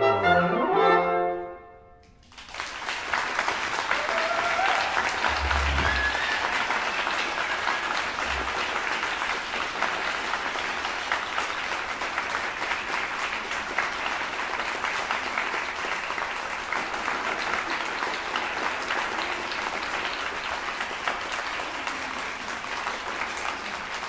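A woodwind quintet of flute, oboe, French horn, bassoon and clarinet ends a piece on a final held chord, then after a brief pause an audience applauds steadily.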